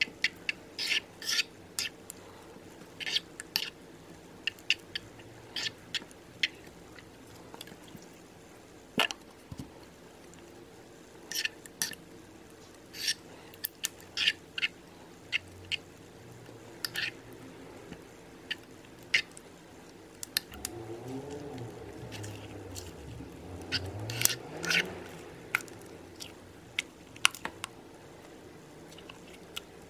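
Metal spoon stirring thick, foamy slime mixture in a plastic bowl, giving irregular sticky clicks and squelches as the glue thickens into slime.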